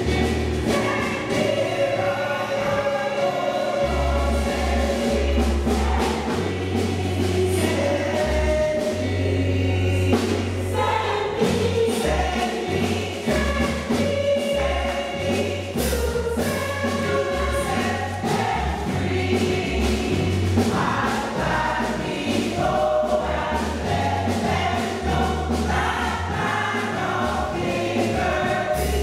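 Gospel choir singing in harmony over low bass notes that change in steps.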